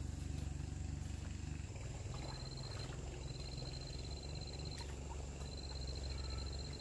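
Steady low outdoor rumble, with a high, even insect trill that comes in about two seconds in and repeats in stretches of one to two seconds.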